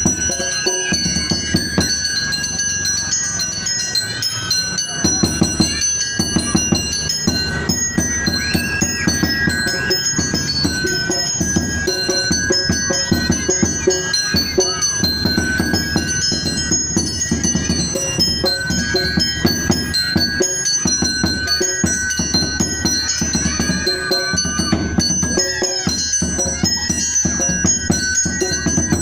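Music with bright bell-like mallet percussion notes over a steady, driving low drumbeat.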